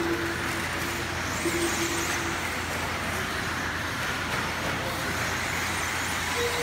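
Electric RC off-road buggies with 17.5-turn brushless motors racing on an indoor clay track: a steady hiss of motors and tyres, briefly louder and higher about a second and a half in, with short steady tones near the start and again about a second and a half in.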